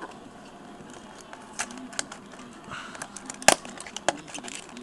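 Handling and opening of a baseball card pack: scattered crinkles and small clicks from the wrapper, with one louder sharp click about three and a half seconds in.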